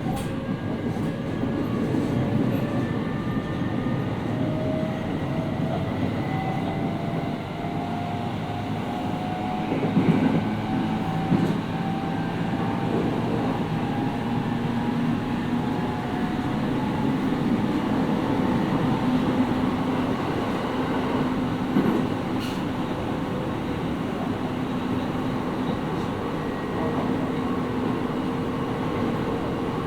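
Onboard running sound of a JR 701 series 5500-subseries electric train: the traction motor whine rises in pitch through the first half as the train gathers speed, then settles into steady running noise. A few short knocks of the wheels over rail joints come about ten, eleven and twenty-two seconds in.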